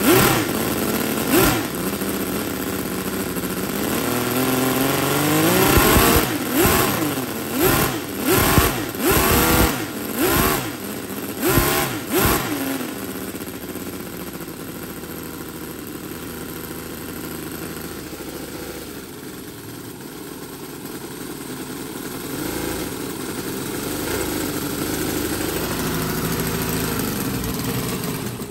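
Howin I6-210 21cc four-stroke inline-six scale model petrol engine running, its throttle blipped again and again so the revs jump up and fall back, several quick blips in the first half. It then settles to a steady idle that rises slightly, and cuts off abruptly at the very end as it is switched off.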